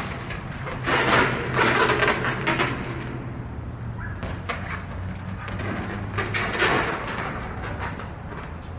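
Large inflated latex balloon being handled and tossed between the hands: bursts of rubbing and brushing on the latex, twice, with a few light taps between them, over a steady low hum.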